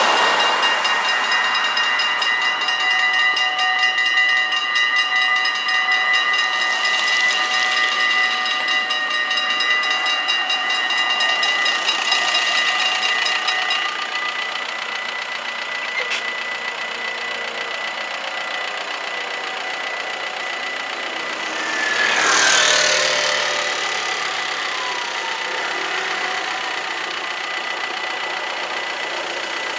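Warning bells of a Dutch AHOB level crossing ringing rapidly, a steady high clanging ring, while the half-barriers come down. About 14 seconds in, with the barriers down, the ringing becomes quieter and thinner but keeps going. A road vehicle passes about 22 seconds in, with a brief swell of noise that falls in pitch.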